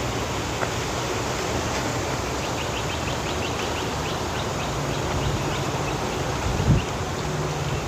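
A bird calls in a quick run of short, high notes, about five a second, starting about two seconds in and lasting some three seconds, over a steady low outdoor rumble.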